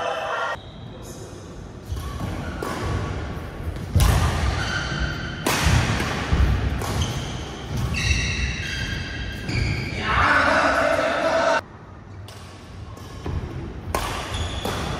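Badminton doubles rally in an echoing indoor hall: sharp racket strikes on the shuttlecock and court shoes squeaking on the mat, mixed with players' voices. The sound breaks off abruptly twice.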